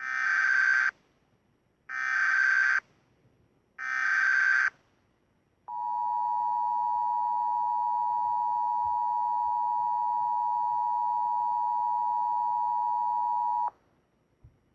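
Emergency Alert System alert: three bursts of about a second each of the SAME header's warbling data tones, then the two-tone Attention Signal (853 and 960 Hz) held steady for about eight seconds and cutting off abruptly. It marks the start of a new emergency message.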